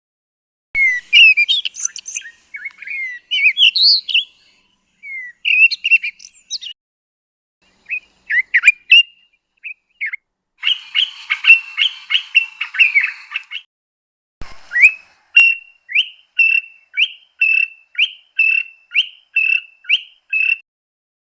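Recorded southern African bird calls played in succession. First comes a varied song of quick whistled and warbled phrases, then a denser, busier passage. A series of short rising whistled notes follows, repeated a little under twice a second.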